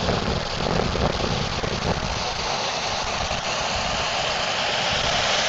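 Floodwater rushing into a creek: a steady, loud rush of water.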